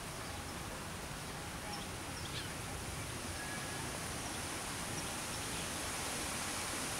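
Steady outdoor background hiss, with a few faint, short high chirps about two seconds in.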